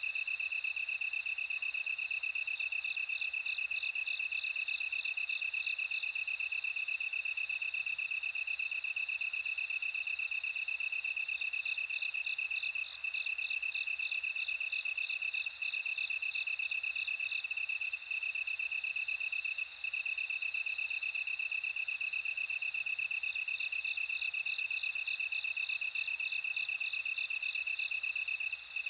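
Bell crickets chirping: a continuous pulsed trill underneath, and a higher ringing song in short phrases that repeat about every one to two seconds, falling away in the middle and coming back later.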